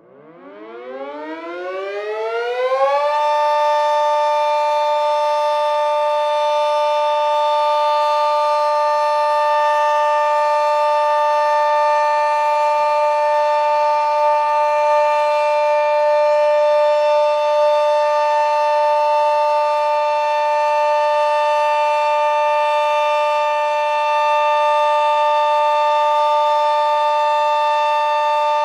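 Sentry 40V2T omnidirectional dual-tone warning siren winding up from rest in a rising whine over about three seconds, then holding a steady two-note chord: the full alert signal. Very loud.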